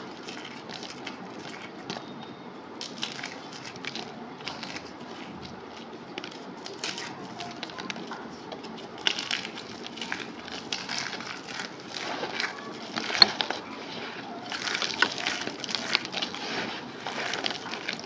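Compressed cornstarch crunchies crumbling: a run of soft crackles and crunches, sparse at first, then coming thicker and louder from about nine seconds in.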